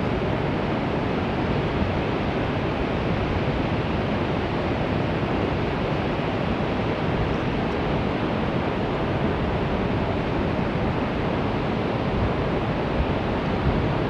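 Steady, even rushing noise of the riverside outdoors, with no bird calls or other distinct sounds in it.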